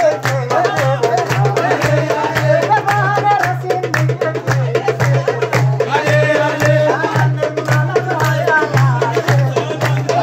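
Afar folk song music: singing over a steady, driving drum beat.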